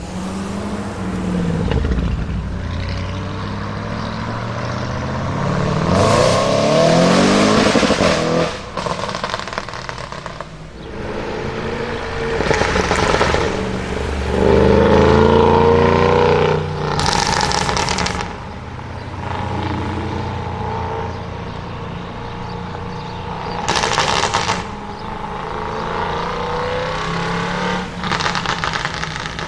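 Audi RS6 Avant's twin-turbo V8 through a Capristo aftermarket exhaust, revving up several times with a rising pitch. Between the revs come bursts of rapid crackling and popping from the exhaust.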